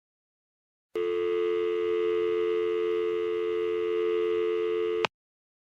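Telephone dial tone: a steady, unbroken two-pitch hum held for about four seconds, starting about a second in and cutting off suddenly with a small click.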